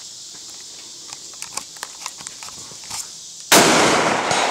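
A single rifle shot about three and a half seconds in, sudden and loud, with a long echoing tail that fades away. Before it, a few light clicks.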